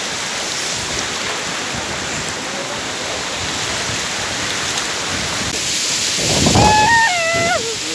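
Steady rush of a fast-flowing stream and waterfall. Near the end, a voice calls out in a high tone that steps down in pitch.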